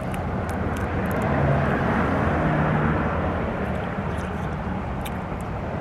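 A motor vehicle passing: a steady rushing hum that swells to its loudest a second or two in, then fades.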